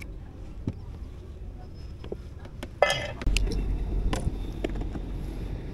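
Small clicks and clinks of fishing tackle and a plastic bait box being handled on a wooden boat, with a short clatter about three seconds in, over a low rumble that grows stronger after that.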